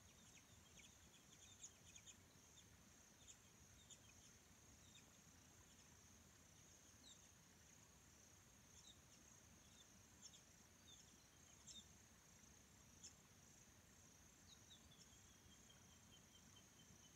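Quiet evening lakeside ambience: a steady high chirring of insects, with scattered short bird chirps and, near the end, a bird's run of notes falling slightly in pitch. A faint low hum lies beneath, the boat's fridge running.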